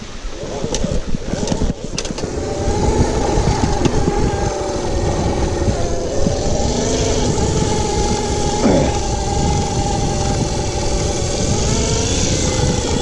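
Electric motor of an OSET 24 electric trials bike whining steadily under way, coming in about two seconds in and dipping briefly past the middle, over a constant rumble of the tyres on the dirt trail and wind on the microphone.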